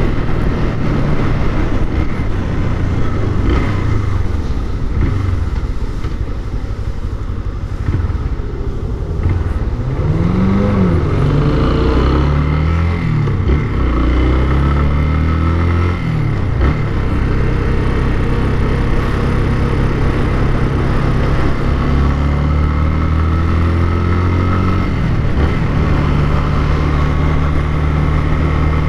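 Motorcycle engine running while riding in traffic. Its pitch rises and falls three times in quick succession in the middle, then holds a steady note for much of the second half, with a short rise and fall shortly before the end.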